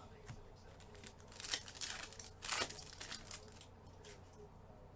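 Trading-card pack wrapper crinkling and tearing as it is ripped open, in a run of crackling bursts lasting about two seconds.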